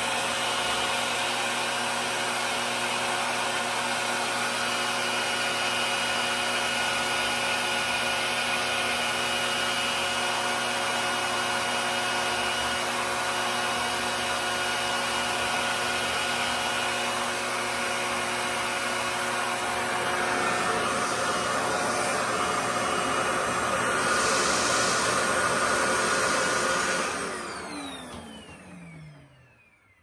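RevAir reverse-air hair dryer running, its suction fan drawing hair through the wand: a steady rushing with several steady whining tones. About 27 seconds in it is switched off, and the motor winds down with its pitch falling until it stops.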